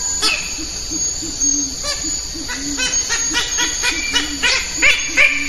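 Birds calling: a low hooting note repeats steadily about two to three times a second, and from about two seconds in a rapid series of sharp chirps joins it, growing louder near the end.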